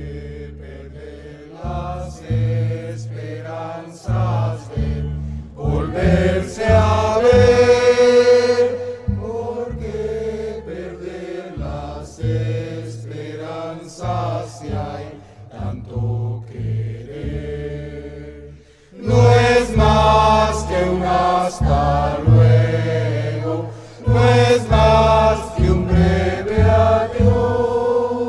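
Live estudiantina music: a group of voices singing together over plucked and strummed string instruments with a steady bass line. The singing swells loudest twice, about a quarter of the way in and again through the last third.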